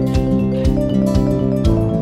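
Instrumental background music with a steady beat of about two a second; the chord changes near the end.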